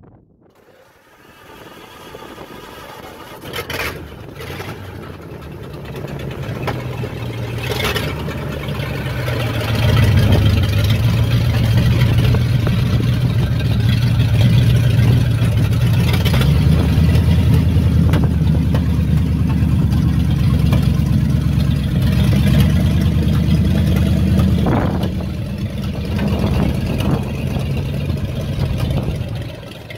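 1949 Ford F1 pickup's flathead V8 running, growing louder over the first ten seconds and then idling steadily, with a few short clicks along the way.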